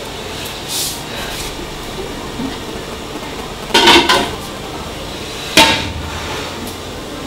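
Metal cooking pot clanking on a stove: a soft knock, then a clattering knock about halfway through and a sharp ringing clank about a second and a half later.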